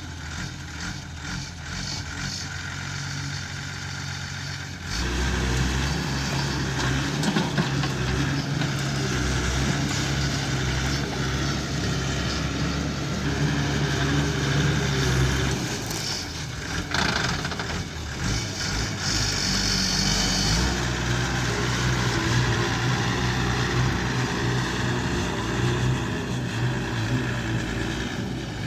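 Diesel engine of heavy earthmoving machinery running, getting louder about five seconds in and briefly easing off a little past the middle. A short high hiss comes around twenty seconds in.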